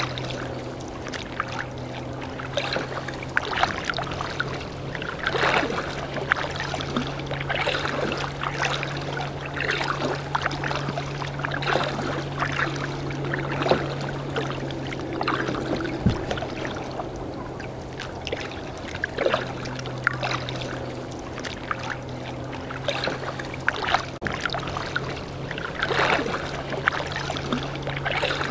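Kayak under way: paddle splashes and water lapping against the hull come irregularly, every second or two, over a steady low hum.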